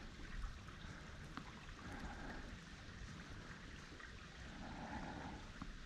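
Faint, steady rushing of a creek flowing in the gorge below.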